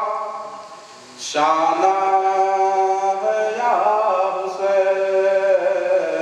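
A man chanting devotional verse unaccompanied, in long drawn-out melodic notes with slow glides in pitch. He breaks off briefly about a second in, then resumes with a long held line.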